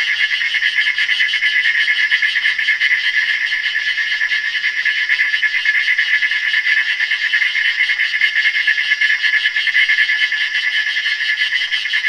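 Designed creature hiss built from layered insect sounds with vocoder effects and a mechanical overlay: a continuous, high, buzzing hiss with a fast flutter.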